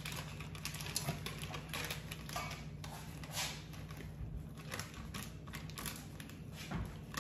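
A flour bag rustling and crinkling as flour is shaken out of it into a measuring cup, with irregular small crackles and taps over a steady low hum.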